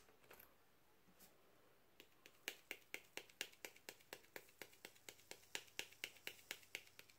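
Small plastic shaker jar of Recollections glow-in-the-dark glitter shaken out over a koozie, a quick even run of light clicks about five a second, starting about two seconds in.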